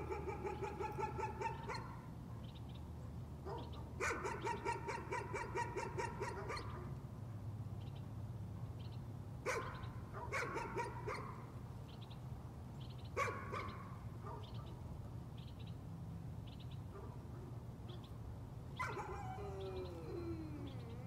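A dog barking persistently: two long runs of rapid, pitched barks, then several short single barks, and near the end a long call that falls in pitch.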